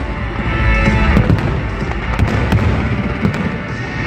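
Fireworks bursting with sharp bangs every second or so, over loud music from the display's soundtrack.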